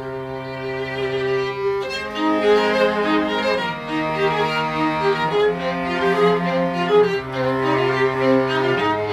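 String trio of two violins and a cello playing live, with long bowed notes. The cello's low note changes every two seconds or so under the violins' melody.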